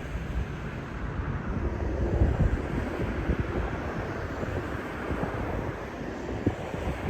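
Wind buffeting the microphone outdoors, an uneven low rumbling noise with no clear tones.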